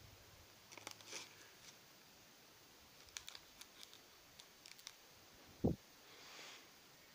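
Quiet handling of a plastic blister pack: scattered small clicks and crinkles of the stiff plastic, then one short dull thump about three-quarters through, the loudest sound, followed by a soft rustle.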